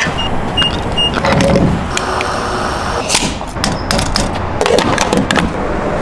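Refuelling at a gas-station diesel pump: three short high beeps in the first second, then clunks and knocks as the fuel nozzle and pump are handled, over a steady low rumble.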